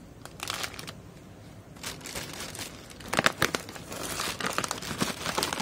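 A shopping bag crinkling and rustling as it is handled and unpacked: irregular crackles, sparse at first, getting louder and busier from about three seconds in.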